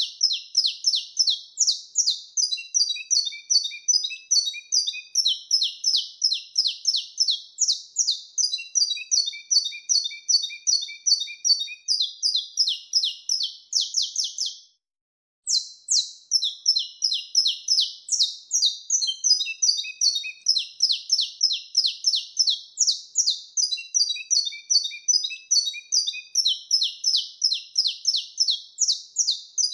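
Saffron finch (canário-da-terra) singing the song style breeders call 'canto mateiro sinado': fast runs of sharp, high chirped notes in repeating phrases. The song breaks off completely for under a second about halfway through, then carries on.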